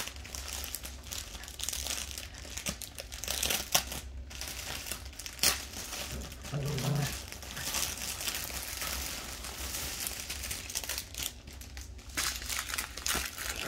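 Clear plastic packaging holding small bags of diamond painting drills crinkling and rustling as it is handled, with a few sharper crackles.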